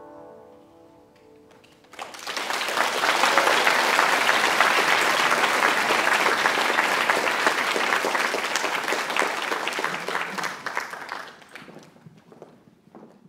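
The last chord of a pipa ensemble rings and dies away. About two seconds in, audience applause breaks out; it runs steadily for about nine seconds and fades out near the end.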